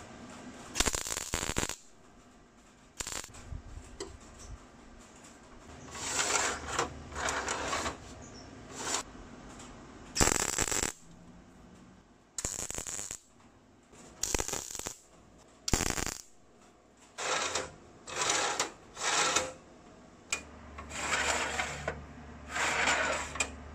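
Wire-feed (MIG) welding arc crackling and sizzling in a string of short bursts, about a dozen separate tack welds with pauses between them.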